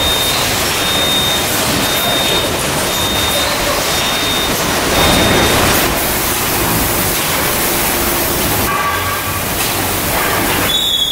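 Steady mechanical noise from a running packaging-line conveyor and palletizer. A high electronic beep repeats about every 0.7 seconds and stops about six seconds in.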